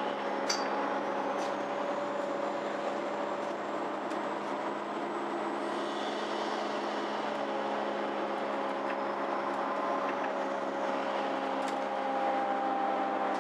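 Interior ride sound of a MAN Lion's City G articulated city bus (Euro 6) under way: a steady diesel and drivetrain drone with a whine that drifts slowly up and down in pitch. There is a brief click about half a second in.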